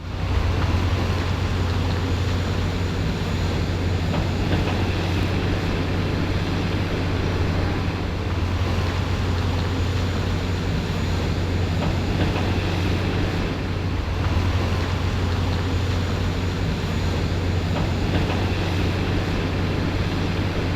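Excavator's diesel engine running steadily, a constant low drone with no change in pitch.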